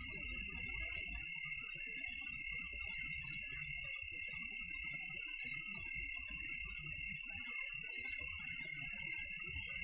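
Faint, steady background of chirping insects, a high continuous chirring, with a soft low rumble underneath.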